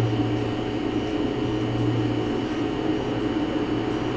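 Steady low mechanical hum over a background whoosh, the low part of the hum easing off about halfway through.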